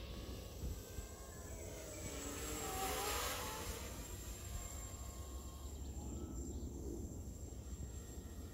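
Small FPV copter's electric motors and propellers whining in flight, several tones sliding up and down in pitch; the sound swells, louder and hissier, about three seconds in. A low rumble of wind on the microphone lies underneath.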